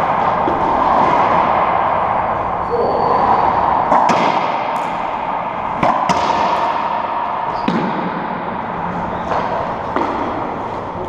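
Racquetball rally: the ball is struck by racquets and smacks off the court's walls and floor, about seven sharp cracks from about four seconds in, each with a short echo, over a steady background noise.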